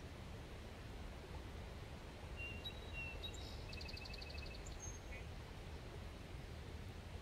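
Quiet outdoor ambience: a low steady rumble with a small bird singing for a couple of seconds in the middle, a few thin high whistles followed by a quick trill of about ten notes.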